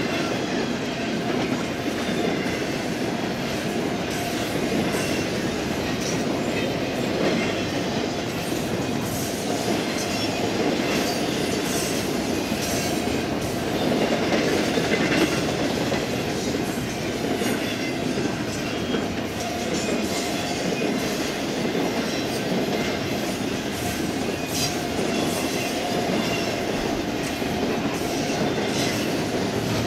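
Double-stack intermodal freight train's well cars rolling past at steady speed: a continuous rumble with the clatter of wheels over the rail.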